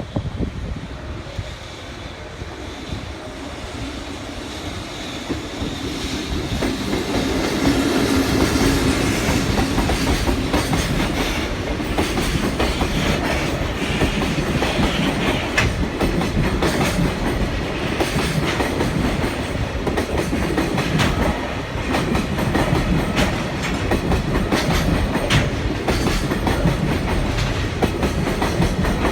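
Freight train behind an EF65 electric locomotive rolling past, its wagons' wheels clattering steadily over rail joints. The rumble builds over the first several seconds, then holds loud and continuous.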